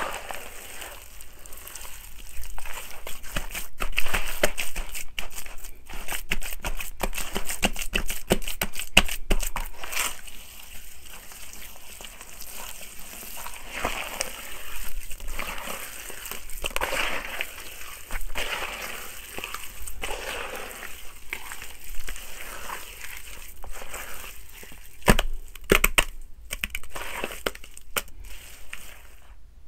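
Hands squeezing and kneading wet, gritty soil, with a crunching and crackling of grit. The crackles are densest in the first third and give way to a rougher, more continuous squishing and rustling.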